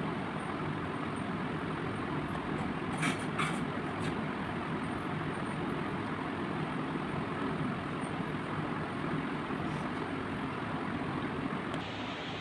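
Steady rumble and running noise heard from inside a moving vehicle, with two short clicks about three seconds in. The noise eases slightly near the end.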